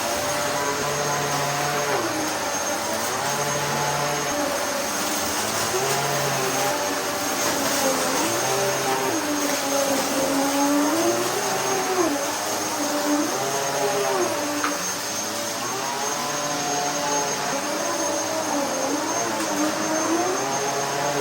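Dyson DC14 upright vacuum cleaner running steadily at full suction, its motor whine rising and falling in pitch every second or two as the load on it changes.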